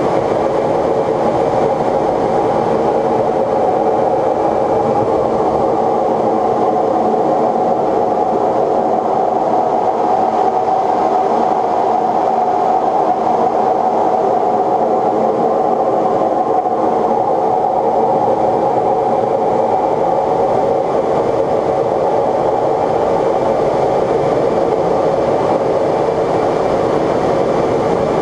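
Steady roar of F/A-18 cockpit noise in flight, the rush of air and engine noise heard inside the canopy, even and unchanging, with a faint high steady whine.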